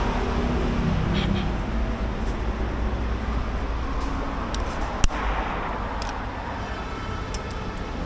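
Steady rumble of street traffic, with one sharp click about five seconds in.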